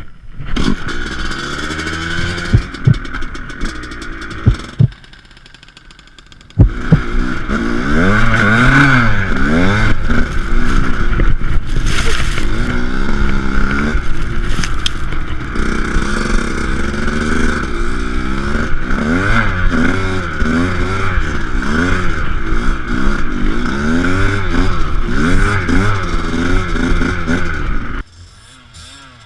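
Motocross dirt bike engine revving hard and shifting, its pitch climbing and falling over and over. It drops away for a moment about five seconds in, and again just before the end.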